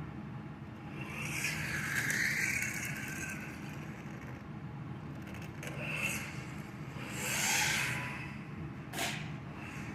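A 1/14-scale RC rally car's small electric motor and drivetrain whining as the car speeds up and slows in short runs, about a second in and again around seven seconds in, with the hiss of tyres scraping. A sharp knock comes near the end.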